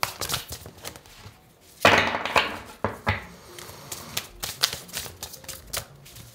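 Large oracle cards from the Black Enchantment deck being shuffled by hand, a run of quick card clicks and slaps with a louder rush of cards about two seconds in.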